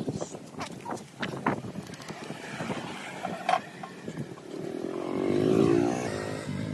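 A motorcycle engine passes, growing louder to a peak about five and a half seconds in and then easing off. Before it there is a scatter of short clicks.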